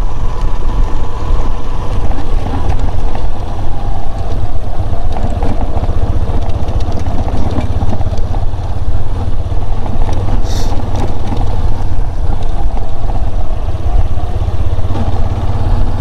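Vehicle engine running while driving along a dusty dirt road, under a deep, steady rumble, with a brief hiss about ten and a half seconds in.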